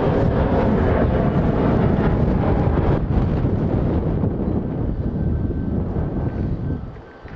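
Jet airliner engines rumbling loudly as the aircraft passes, with faint engine tones near the start. The sound dies away near the end, and wind buffets the microphone.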